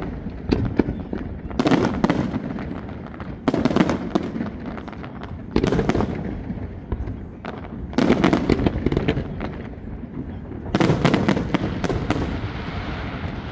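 Aerial fireworks shells bursting in an irregular series of booms, some in quick clusters, each trailing off into crackle and echo. Near the end the booms give way to a steady crackling hiss.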